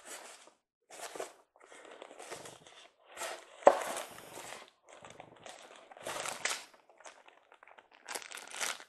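Plastic packaging wrap crinkling in irregular handfuls as it is pulled and handled, with one sharp snap of tape being torn a little under four seconds in.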